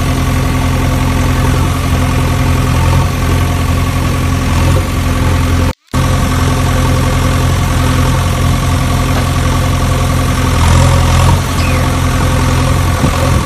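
Engine idling sound, a steady low hum with a constant pitch, cutting out for a moment about six seconds in.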